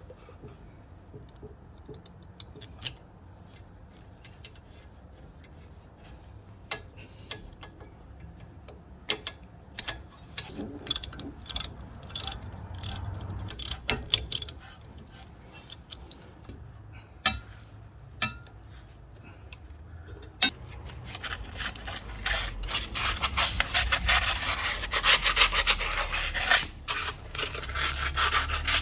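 Metal parts being handled by hand, with scattered clicks and taps, then from about twenty seconds in a continuous rapid scraping and rubbing, as of something being scrubbed or brushed hard.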